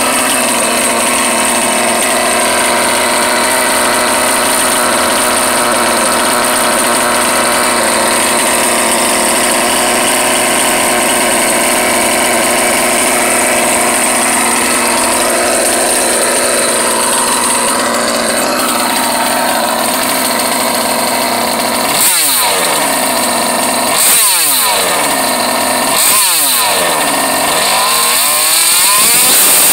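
OBR 57 cc twin-cylinder two-stroke engine of a 1/5-scale RC truck idling steadily. Near the end it is revved in four short throttle blips about two seconds apart, the last one longer.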